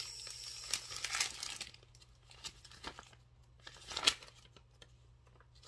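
Paper receipt being unfolded and handled, crinkling: a run of crinkling over the first second and a half, then a few separate crackles, the sharpest about four seconds in.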